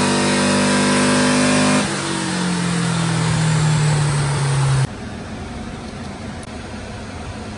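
Air-cooled VW Beetle 1.6-litre flat-four with an SS143 performance exhaust, run on a chassis dyno at high revs. About two seconds in the throttle comes off and the revs sink. The engine cuts off abruptly about five seconds in, leaving a steady rushing background noise.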